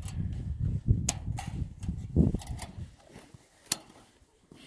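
Steel woven fence wire being worked and wrapped with a hand tool: a few sharp metal clicks, over low muffled rumbling and thumps for the first three seconds.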